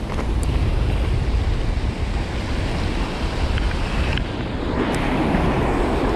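Wind buffeting the microphone over the steady wash of sea waves, with a few faint ticks.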